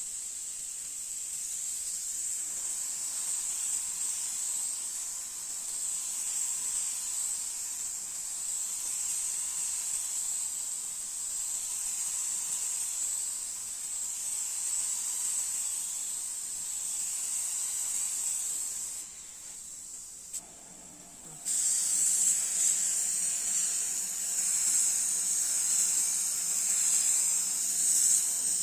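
Gravity-feed compressed-air spray gun hissing steadily as it sprays paint onto a car body panel. The hiss drops away for about two seconds past the middle, then comes back louder.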